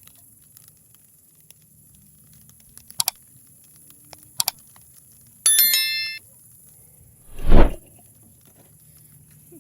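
A few sharp clicks, then a metal strike that rings briefly with several clear tones a little past halfway, followed by a loud dull thump near the end.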